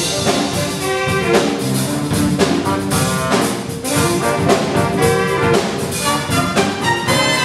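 Jazz big band playing live: brass and saxophone sections over a drum kit and rhythm section.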